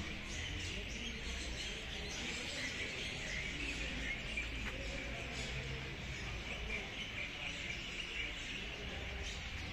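Small birds chirping and twittering in the trees, many short overlapping calls, over a steady low background rumble.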